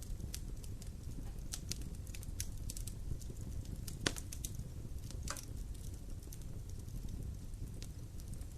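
Wood fire burning in a fireplace: a low steady rumble of flames with scattered sharp crackles and pops, the loudest about four seconds in.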